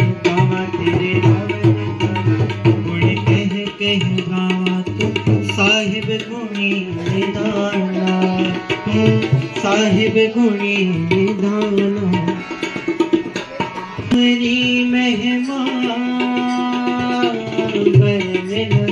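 Sikh kirtan: a hymn sung to harmonium, with tabla drumming underneath.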